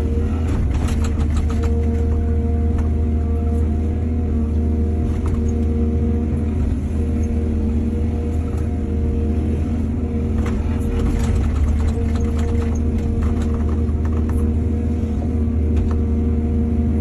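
Excavator's diesel engine running steadily under load, with bursts of clattering knocks about a second in and again between about ten and thirteen seconds.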